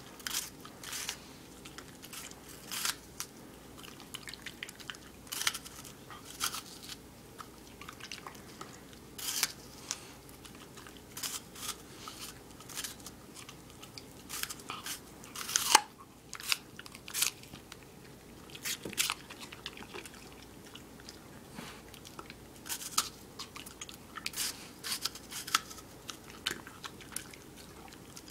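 A dog biting chunks off a raw apple held in a hand and chewing them, with irregular crunches throughout and one louder crunch about halfway through.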